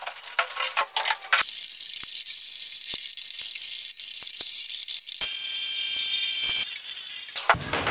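A handheld power tool running along the edge of a wooden panel. A run of quick knocks comes first; about a second and a half in, the motor's steady noise starts. About five seconds in, a higher whine joins it, and the sound stops shortly before the end.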